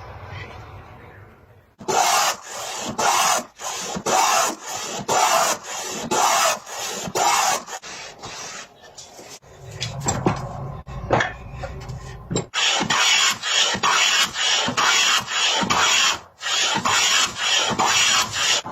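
A hand tool scraping across wood in quick repeated strokes, about two a second. The strokes loosen for a few seconds midway, then pick up again faster.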